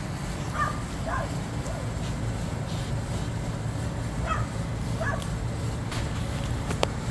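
A dog whimpering in short high yips, four calls in two pairs, over a steady low rumble, with a sharp click near the end.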